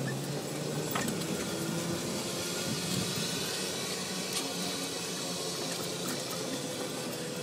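A small vehicle engine running at a steady speed under a constant rush of tyre and wind noise while driving along a sandy dirt track.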